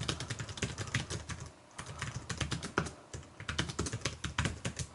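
Typing on a Logitech K810 Bluetooth keyboard: quick, irregular key clicks of its low-profile keys, with a brief pause about a second and a half in.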